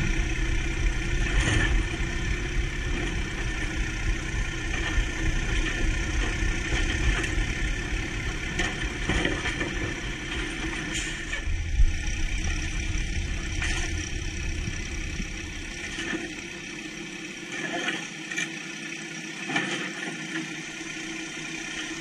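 Diesel engine of an automated side-loading garbage truck running, with scattered clunks and knocks as its arm handles the curbside carts. One sharp knock comes about twelve seconds in. The deep engine rumble drops away about sixteen seconds in.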